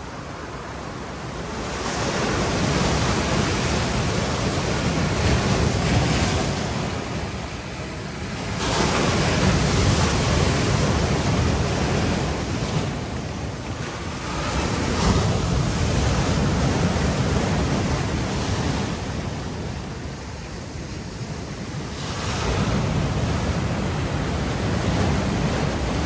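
Ocean waves breaking on a rocky boulder shore, the surf swelling and ebbing in about four long surges of hissing, washing water.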